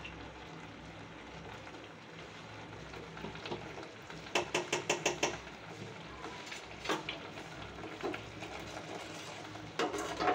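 Metal spoon clinking against a stainless steel pan: a quick run of about six clinks about four seconds in, then a few single clinks, over a low steady hum.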